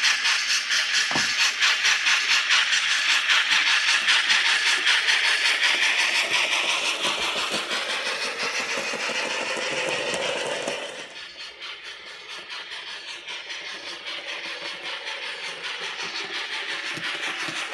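Viessmann H0 motorised low-sided flat wagon (Niederbordwagen) running along model railway track, with a steady, fast rhythmic clatter from its drive and wheels. The clatter fades as the wagon runs away, dropping off sharply about eleven seconds in.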